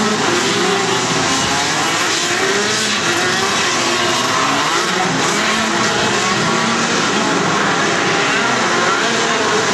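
A field of 125 cc two-stroke racing kart engines running together on the track. Several engine notes overlap, each rising and falling as the karts accelerate and lift through the corners.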